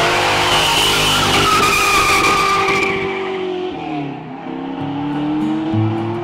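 Ford Mustang GT fastback's 289 V8 launching hard with its tyres squealing for about three seconds. About four seconds in the engine note dips, then climbs steadily as the car pulls away.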